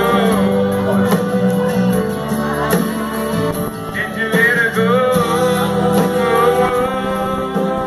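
A man singing into a microphone over instrumental backing music, with a run of quick, bending notes about halfway through.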